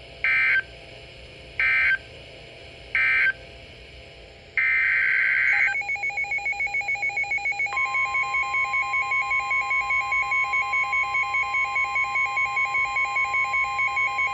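Emergency Alert System signalling on NOAA Weather Radio: three short SAME digital data bursts about a second and a half apart, the end-of-message code closing one warning, then a longer data burst opening the next alert. A fast-pulsing electronic beep follows, and about eight seconds in the steady 1050 Hz weather-radio warning alarm tone joins it.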